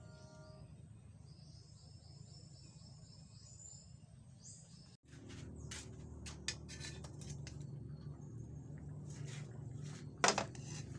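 Small birds chirping faintly over a quiet rural background. About halfway through this gives way to a low steady rumble with scattered clicks beside an open wood cooking fire, and a sharp knock near the end.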